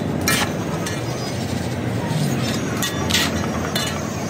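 A metal scoop and sieve scraping and clanking against a large metal wok of popcorn, a few sharp strokes, over steady street noise.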